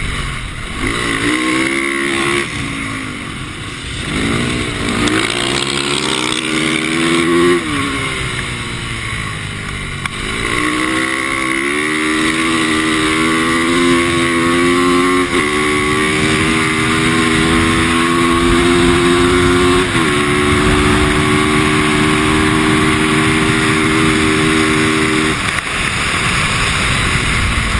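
A 450cc four-stroke single-cylinder dirt bike accelerating on ice. It rises in revs twice in short bursts, then pulls a longer run with two upshifts where the pitch steps down, and eases off the throttle near the end. A steady hiss runs underneath.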